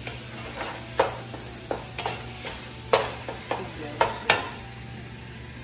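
Wooden spatula stirring sweet potato leaves in a pot, knocking sharply against the pot several times in the first four and a half seconds, over a light sizzle of the greens frying.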